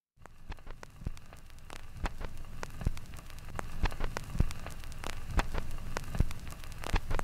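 Record-player surface noise: steady crackle and hiss over a low hum, with scattered sharp pops at an uneven pace, cutting in suddenly just after the start.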